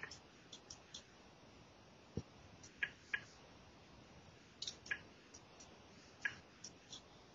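Quiet, irregular clicking of a computer mouse, about a dozen and a half light clicks, with a single duller thump about two seconds in.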